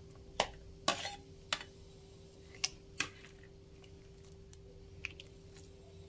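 Metal spoon knocking and clinking against a plastic plate and an aluminium wok as cabbage is scraped into a pot of broth and stirred: a handful of sharp clicks in the first three seconds and one more about five seconds in, over a faint steady hum.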